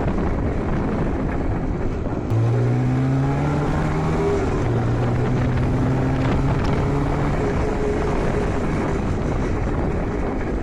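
IZh Jupiter 5 motorcycle's two-stroke twin engine running under way, with wind on the microphone. About two seconds in, the engine note comes through clearly, drifting slightly lower, then picks up again around the middle. The owner says this engine knocks and rings badly enough that it has to be stripped for inspection.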